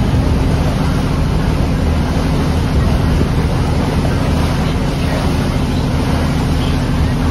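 Chao Phraya River express boat's engine running steadily underway, with water rushing along the hull and wind buffeting the microphone.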